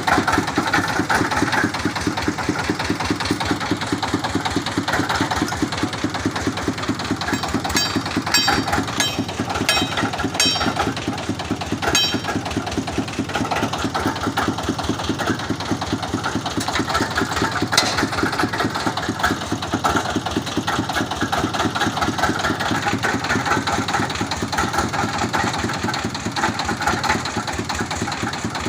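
Engine of a water-well boring rig running steadily with a fast, even firing pulse. A quick run of sharp metallic clicks comes about a third of the way in, and one more click a little past the middle.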